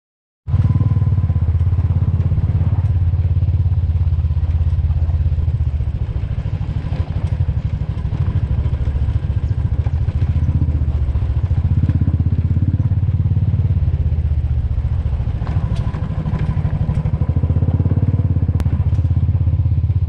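Motorcycle engine running steadily as the bike travels along a dirt track.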